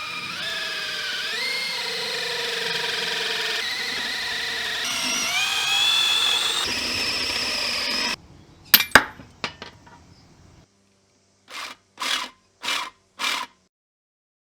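Power drill with a metal bit running under load as it drills into a rubber control-arm bush between the inner metal sleeve and the outer ring; its motor whine steps up in pitch twice, then stops after about eight seconds. A few sharp clicks follow, then four short bursts near the end.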